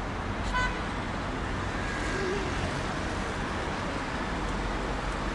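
Steady road traffic noise of a city street, with a short high chirp about half a second in.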